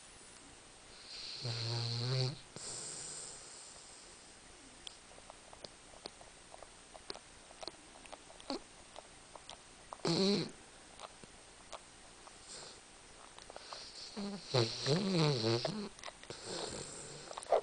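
Rhodesian Ridgeback snoring in its sleep: a snore about two seconds in, another around ten seconds, and a longer run of wavering snores near the end, with faint small clicks in between.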